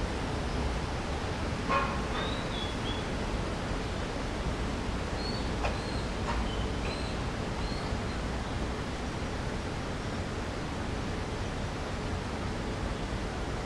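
Steady outdoor background hiss. Over it come a few short, high bird chirps about two seconds in and again a few times between about five and eight seconds in, with a couple of faint clicks. No tram passes: the level stays flat throughout.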